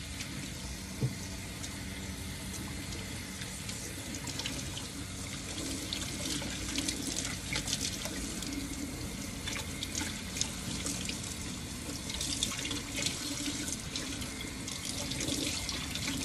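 Kitchen sink tap running steadily while hair is washed and rinsed under it, with irregular splashing that gets busier about six seconds in.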